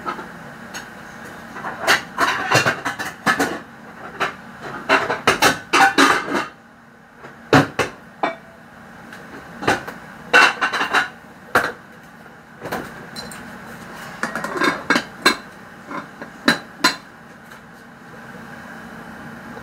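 Kitchen clatter: pots, dishes and utensils knocking and clinking in several separate bursts, over a steady low hum.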